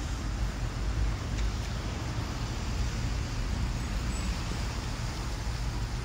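Wind rushing over the microphone outdoors, a steady rush with uneven low rumbling.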